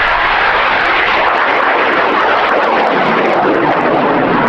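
Cesaroni (CTI) O8000 high-power solid rocket motor burning at full thrust: a loud, steady rushing noise with no pitch to it as the rocket climbs.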